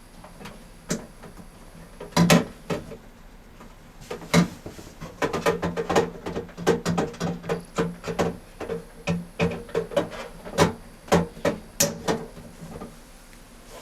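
A series of sharp clicks and knocks, sparse at first and then coming thick and fast through the middle, over a steady low hum.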